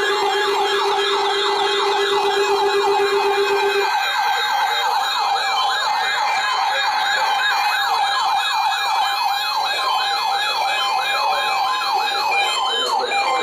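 Several NOAA weather radios sounding their alert alarms together for a weekly test: overlapping warbling, siren-like tones that rise and fall about twice a second. A steady lower tone stops about four seconds in.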